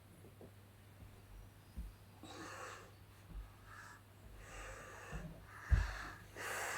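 A person breathing audibly close to the microphone, several short rushes of breath a few seconds apart, with a few low bumps of the recorder being handled over a steady low electrical hum.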